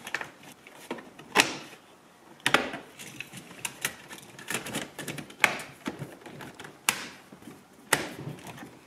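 Lower plastic interior trim cover of a VW Golf 5 being pushed back into place: a string of irregular plastic clicks and knocks, with about five sharper snaps spread through it.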